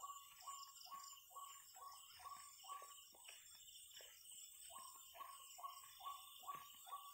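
Faint night-time animal chorus: short calls repeating two to three times a second, each dropping in pitch, over a steady high insect drone.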